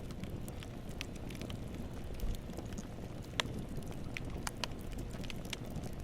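Wood campfire burning: a steady low rush of flame with irregular crackles and sharp pops from the burning wood, one pop standing out about three and a half seconds in.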